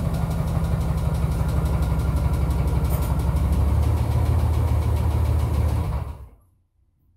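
Chevrolet pickup's 350 V8 running at low speed, its note growing heavier about four seconds in, then shut off just after six seconds. It is a worn engine that the owner says needs a rebuild.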